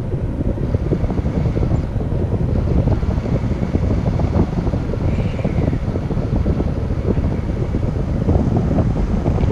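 Airflow buffeting the microphone in flight on a paraglider: a loud, steady rush of low rumbling wind noise.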